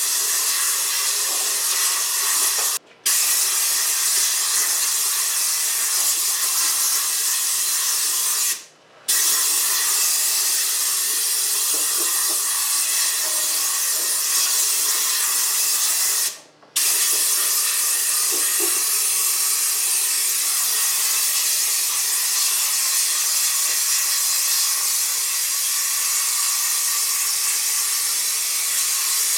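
Compressed-air blow gun hissing steadily as it blows rinse water off an engine bay, stopping for a moment three times when the trigger is let go.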